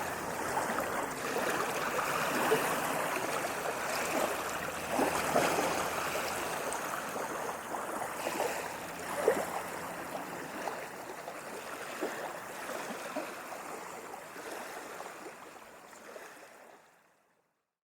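Waves washing on a sandy beach: a steady hiss of surf with scattered brief crackles, slowly fading out to silence near the end.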